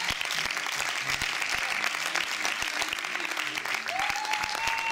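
Audience applauding at the end of a stage play: dense, steady clapping from many hands. Near the end a single high note rises and is then held for about a second above the clapping.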